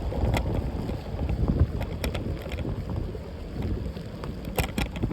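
Wind buffeting the phone's microphone, a steady low rumble, with a few short clicks.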